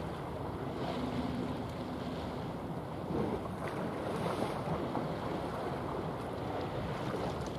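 Steady wind buffeting the microphone over the wash of choppy sea, with a faint steady hum for a second or two near the start.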